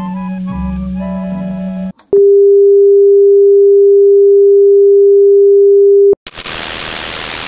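Old television playing string band music, cut off about two seconds in by a loud, steady single-pitch test-card tone that holds for about four seconds: the broadcast test signal that goes with a test pattern. Then the tone stops abruptly and TV static hiss takes over.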